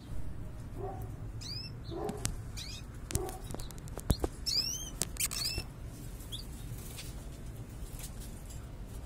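Caged domestic canaries calling: several short groups of quick, sweeping high chirps, a second or so apart. A few sharp taps cut in, the loudest about four seconds in.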